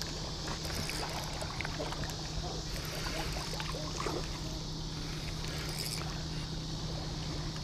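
Steady outdoor background by a lake: a constant low hum under an even, high-pitched hiss, with no distinct event standing out.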